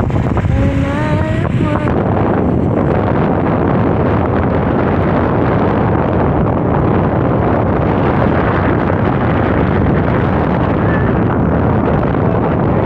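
Wind buffeting the microphone: a loud, steady rumbling noise. A voice is heard briefly in the first two seconds.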